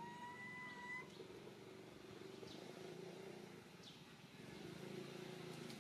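Quiet outdoor ambience. A thin whistled call holds one pitch for about a second at the start, then a few brief high bird chirps come and go over a faint low steady hum.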